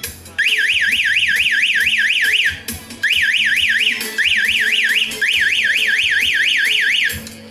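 12 V emergency-exit door siren buzzer sounding a fast up-and-down warble, about four sweeps a second, the alarm of an emergency door. It cuts out for about half a second some two and a half seconds in and breaks off briefly twice more. Background music plays under it.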